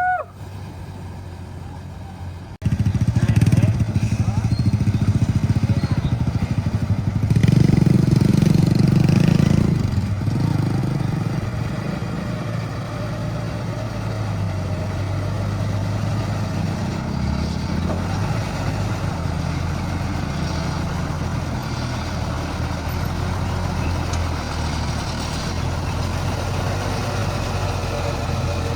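A heavy diesel engine running; it comes in abruptly a couple of seconds in, works harder and louder for a few seconds soon after, then settles into a steady run.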